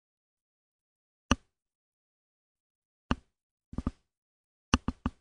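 Short, sharp clicks of a computer mouse or keyboard as a document is scrolled down: single clicks at first, then quick runs of two or three near the end.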